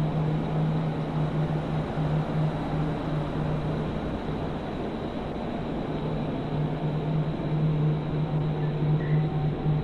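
A steady low hum under an even wash of hiss, typical of a doorbell camera's own low-quality microphone audio. A few faint high chirps come near the end.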